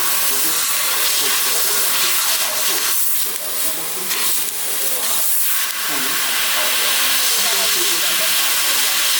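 1500 W fiber laser cutter cutting 3 mm carbon steel: a loud, steady hiss of assist gas at the cutting head. It dips briefly twice, about three and five seconds in.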